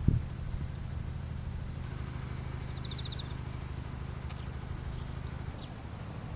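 Outdoor insect sounds over a steady low rumble: a thump at the very start, a short pulsed insect chirp about three seconds in, and a few brief high chirps near the end.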